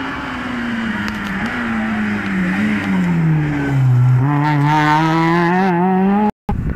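Rally car engine coming down the road, its pitch falling steadily for about four seconds as it slows for the corner, then rising sharply as it accelerates hard away. The sound cuts off abruptly near the end.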